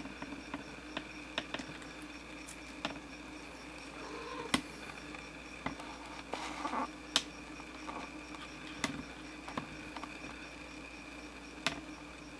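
Faint steady electrical hum with scattered small clicks and soft rustles, no meowing.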